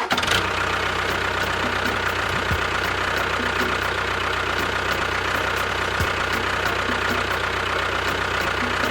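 A small motor running steadily with a fine, rapid rattle, like an engine idling.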